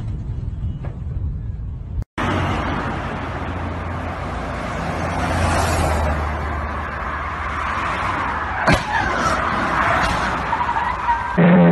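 Road and wind noise from a car driving on a highway with a steady low engine hum, broken about three-quarters of the way through by a single sharp crash as cars collide ahead, followed by a short squeal of tyres. Before this, about two seconds of wind on the microphone cut off abruptly.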